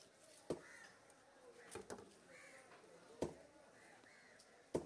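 Sharp knocks of a large curved knife striking a wooden cutting block as a fish is scaled and cut: five knocks about a second and a half apart, two of them close together in the middle, the last the loudest. Crows caw repeatedly in the background.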